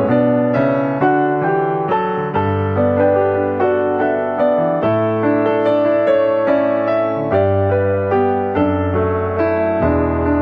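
Background piano music: a gentle run of struck notes over held bass notes that change every couple of seconds.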